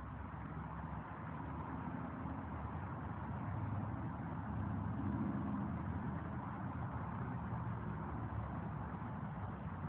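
An engine running steadily at idle: a low hum that swells a little about halfway through, over a steady hiss.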